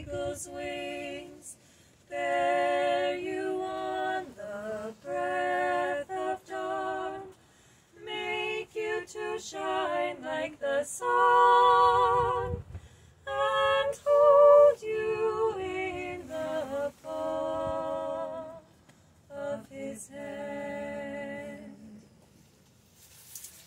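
Two women singing a cappella together, held and wavering notes in phrases with short breaks between them. The song ends near the close.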